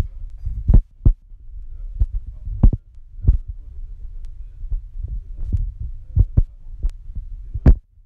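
Muffled low rumbling and thumping of a hand rubbing and bumping against the recording phone's covered microphone, with a dozen or so sharp knocks scattered through it.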